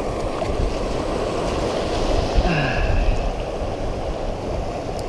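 Shallow sea surf washing and breaking over a rocky reef flat: a steady rush of water.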